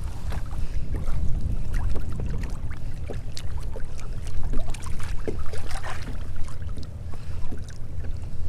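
Irregular splashing and dripping of water close beside a kayak as a red drum is held in the water and released, over a steady low wind rumble on the microphone.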